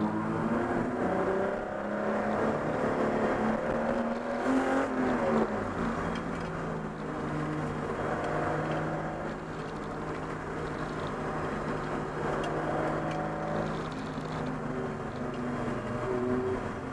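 Race car engine heard from inside its stripped cabin at racing speed, its pitch climbing and dropping as the driver accelerates and lifts off through the first few seconds, then running more evenly at speed, with road and wind noise.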